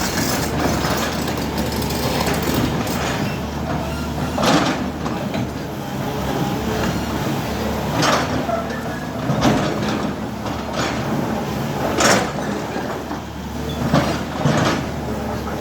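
JCB 3DX backhoe loader's diesel engine running steadily under load, with loud metallic clanks and scrapes every few seconds from the bucket and arm at work.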